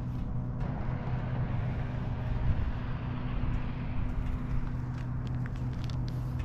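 Car cabin noise while driving: a steady low engine-and-road drone, with a few faint ticks in the second half.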